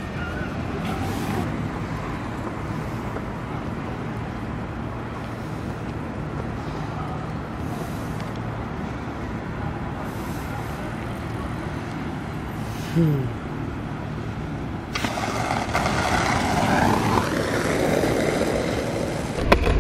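Steady city street traffic rumble. About two-thirds through, a short falling tone sounds briefly. A louder passing noise builds over the last few seconds.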